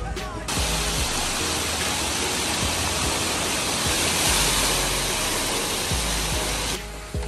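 A large tipping bucket on a splash-pad play structure dumping water, a heavy rush of falling water and splashing that starts abruptly about half a second in and is loudest around four seconds in, then cuts off shortly before the end. Background music plays underneath.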